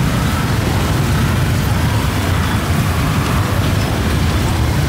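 A steady, heavy low rumble that stays even in level.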